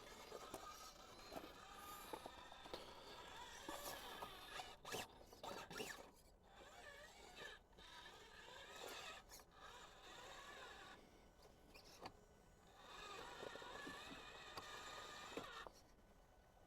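Faint whine of a 1.9-scale RC crawler's electric motor, starting and stopping with the throttle, with light clicks and scraping from the truck moving over the ground.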